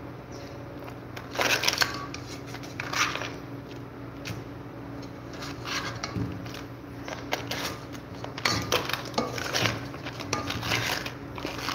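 A spatula scraping and clattering against a wok while cooked crabs and broccoli are stirred and turned, in irregular strokes with a loud burst about a second and a half in and a run of strokes near the end, over a steady low hum.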